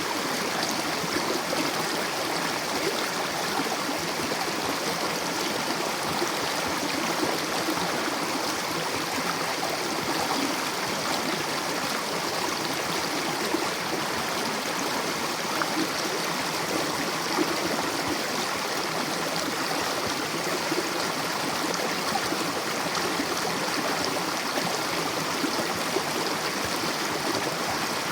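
Mountain river rushing and gurgling over rocks in a steady, unbroken flow.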